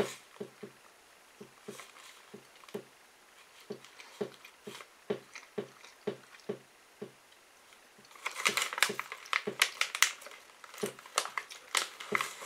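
A person chewing a tough piece of beef jerky, soft chewing sounds about three a second. From about eight seconds in, the plastic jerky pouch crinkles as it is handled.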